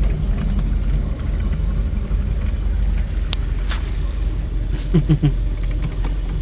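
Classic Ford Thunderbird being driven, heard from inside the car: a steady low engine and road rumble, with a single sharp click a little past three seconds in.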